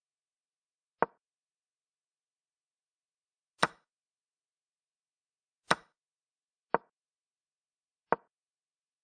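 Digital chess-app move sound effects: five short, sharp wooden clicks, each marking a piece placed on the board. Two of them, about a third and two thirds of the way in, are brighter and slightly longer, matching the capture sound as pawns take on b5.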